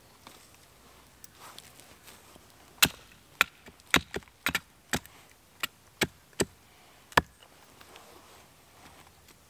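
A small hatchet chopping a wooden stick against a tree stump: about a dozen sharp, irregular chops starting about three seconds in and stopping about seven seconds in, with light handling sounds before them.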